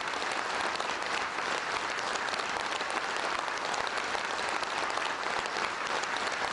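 Large audience applauding, many hands clapping together steadily.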